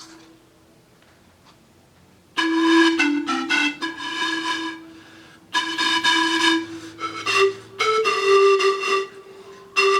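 Pan flute played in two short melodic phrases with an airy, breathy tone, showing pan flute playing effects. The first phrase starts about two and a half seconds in, and the second follows a brief pause and climbs a step higher near its end.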